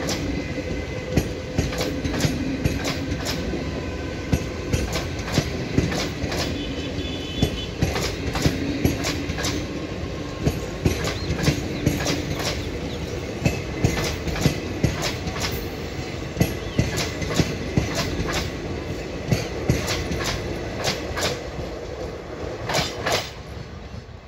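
Passenger coaches of an express train rolling past close by: steady wheel-on-rail rumble with regular clacks as the wheels pass over rail joints, fading near the end as the rear of the train moves away.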